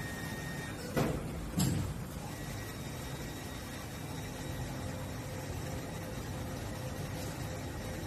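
PDX-1004 double-basket commercial dishwasher running its wash cycle: a steady noise of the wash pump and water spraying inside the closed hood. Two sharp knocks come about a second in, about half a second apart, and a faint steady hum joins a little later.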